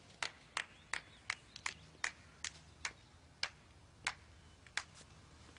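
One person clapping slowly by hand: about a dozen sharp, separate claps that come farther apart towards the end.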